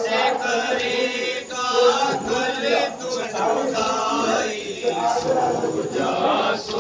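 A group of men chanting together in a Muharram mourning chant, several voices continuing without a break.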